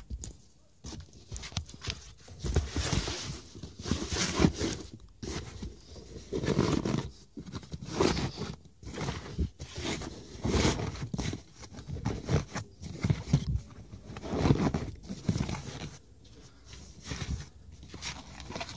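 Quilted leather car floor mat being handled and pushed into place in the rear footwell: irregular rustling and scraping against the carpet, with scattered small clicks.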